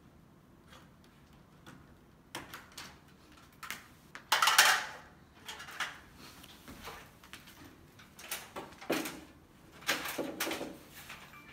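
A string of clicks, knocks and clatters from handling metal door hardware and tools. The loudest is a short clatter about four and a half seconds in, with another cluster of knocks near the end.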